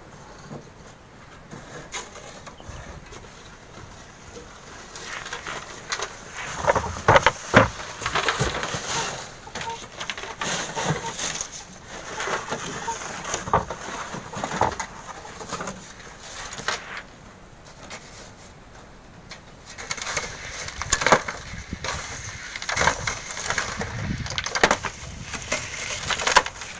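Manual sand-mining work with hand tools: irregular scrapes, knocks and rattles of shovels, a wire sieve and stones against steel wheelbarrows. Fairly quiet for the first few seconds, with a short lull about two-thirds of the way in.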